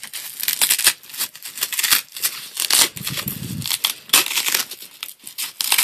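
Velcro strip on a fabric leg cover being pulled apart in several short tearing rasps, with fabric rustling between them.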